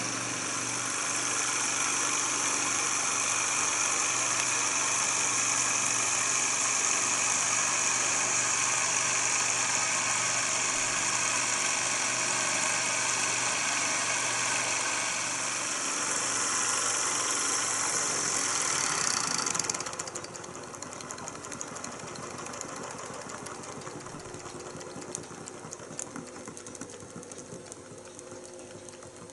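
Small Stirling hot-air engine with a vertical crankshaft and horizontal flywheel running: a steady, even mechanical whirr and rattle with a strong high hiss. About twenty seconds in it turns much quieter, becoming a lighter running patter with small ticks.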